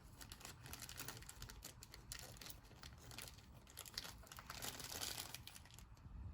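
Faint scattered clicks and rustling of small parts being handled: tumbler wafers from a lock recoding kit being picked through and sorted.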